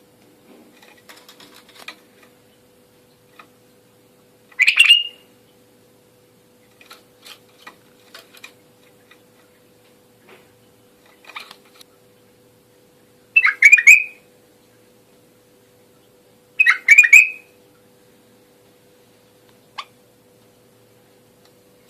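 White-eared bulbul (the Iraqi "Zahari" bulbul) singing: three loud short phrases of quick notes, about 4.5, 13.5 and 17 seconds in, with softer chirps between them. A faint steady hum runs underneath.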